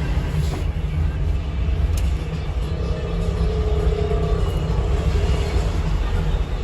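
Steady low rumble of vehicle traffic, with a faint held tone in the middle and a sharp click at the end.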